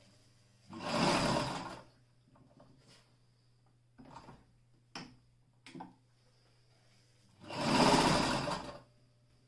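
Alfa Model 42 heavy-duty electric sewing machine stitching through leather in two short runs of about a second each, one near the start and one near the end, with a few light clicks in between.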